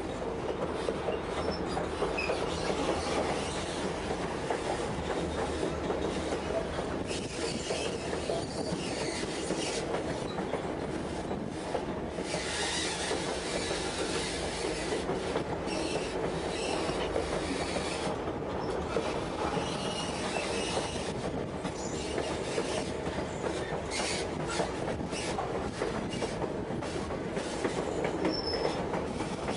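White Pass & Yukon Route narrow-gauge passenger train rolling along the line: a steady rumble and clatter of wheels on rail, with faint high wheel squeals now and then.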